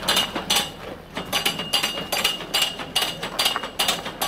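Footsteps crunching on packed snow, about three steps a second.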